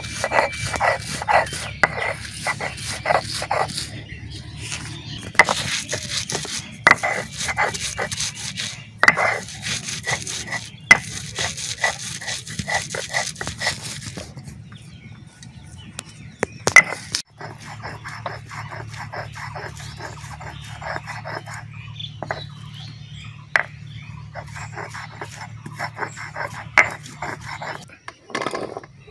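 A kitchen knife cuts raw beef on a plastic chopping board in a run of sharp taps and knocks. After a break about halfway through, a stone roller grinds red chillies on a flat grinding stone (shil-pata) with a steady, rhythmic rubbing.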